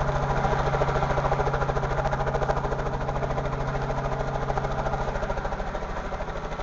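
Helicopter running on the ground, its rotor beating fast and evenly over a steady engine hum, slowly getting quieter.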